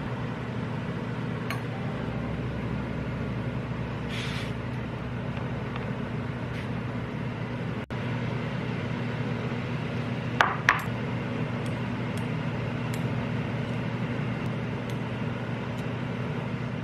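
A steady low hum, with a few light clicks and two sharp clinks in quick succession about ten seconds in, like dishes or glass knocking together.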